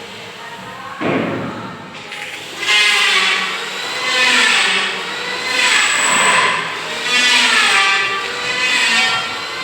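A sudden knock about a second in, then a hand or power tool working in repeated strokes, about one every second and a half, during electrical and plumbing installation work.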